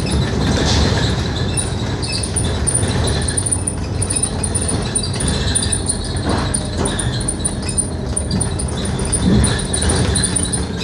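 Scania K310UD double-decker bus on the move, heard from inside: steady engine and road noise with a fast, high-pitched ticking over it.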